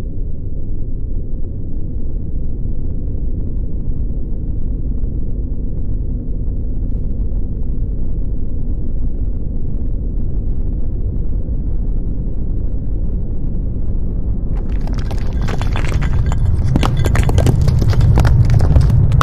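Deep, continuous earthquake rumble. About fifteen seconds in, loud rattling and clattering of shaken objects joins it and the rumble grows louder.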